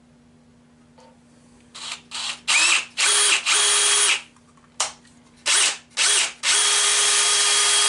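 Cordless drill with a small 1/8-inch bit boring a pilot hole into the metal headstock of a wood lathe. After about two seconds it starts in short stop-start bursts with a steady motor whine, then settles into a longer continuous run near the end.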